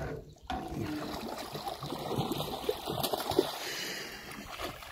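Lake water splashing and sloshing at the side of a boat as a landing net is dipped around a hooked northern pike, with small irregular splashes throughout.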